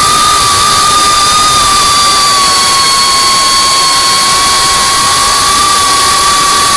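FPV quadcopter's brushless motors and propellers whining steadily at a high pitch over a hiss of rushing air. The pitch dips slightly about two seconds in.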